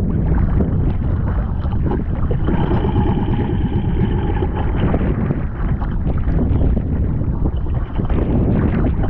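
Wind buffeting the microphone over rough open sea, with waves and spray slapping a small outrigger boat's hull. A faint steady whine comes in for a couple of seconds in the middle.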